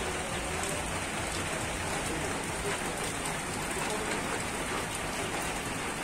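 Steady rain falling, an even hiss of rain on surfaces.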